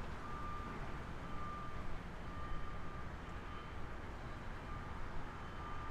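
Vehicle backup alarm beeping at a steady pace, about once a second, over a low rumble of traffic and machinery.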